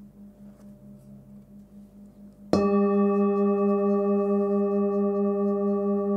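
Hand-forged 19 cm singing bowl with its fundamental at about 199 Hz (G), struck once about two and a half seconds in. It then rings with a deep hum and several higher overtones, wavering slowly in loudness. Before the strike the faint tail of an earlier ring hums on.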